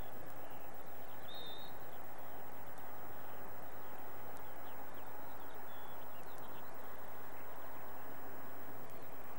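A steady rush of outdoor background noise, with a few faint bird chirps and warbles now and then.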